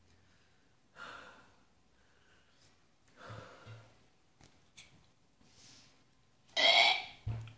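A man breathing heavily through his nose and mouth, letting out several noisy sighs while chewing, with a couple of small clicks. The last breath, near the end, is much louder.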